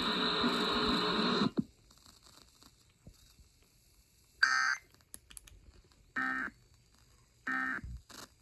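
The broadcast voice of a weather warning ends about a second and a half in. After a pause come a short electronic beep and then short data bursts of warbling tones, spaced about a second and a third apart. These are the Emergency Alert System end-of-message (NNNN) tones that close a warning on NOAA Weather Radio.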